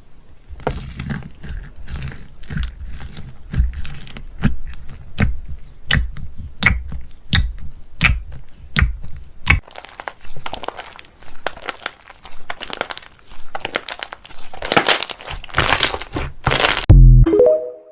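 Slime being squeezed and pressed by hand, giving a run of sharp crackling pops and clicks about two a second that thicken into denser, louder crunching near the end.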